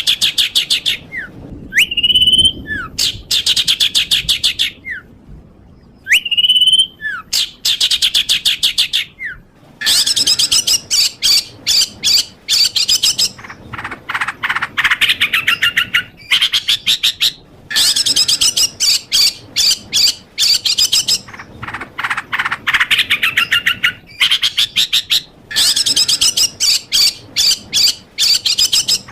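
Songbird song from a looped masteran tutoring recording for competition birds. Repeated phrases of a short slurred whistle followed by a fast, high trill, giving way about a third of the way in to long, dense, rapid trills a few seconds each, broken by short pauses.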